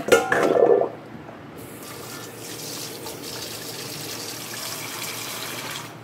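A loud clatter with ringing tones in the first second, then a kitchen tap running steadily into a sink, stopping near the end.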